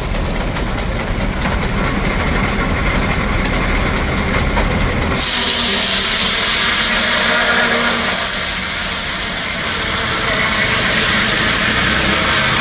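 Steam-engine-driven Frick sawmill running with a low, rhythmic rumble. About five seconds in, a loud, steady rush of high-pitched noise abruptly takes over and the low rumble drops away.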